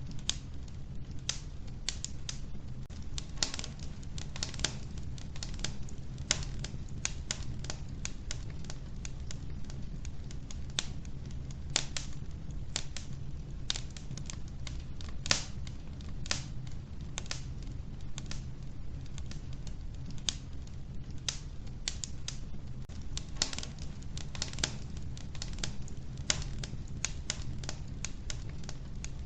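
Logs burning in an old wood-burning stove, crackling and popping irregularly over a steady low rumble. The sharp pops come several to the second, some louder than the rest.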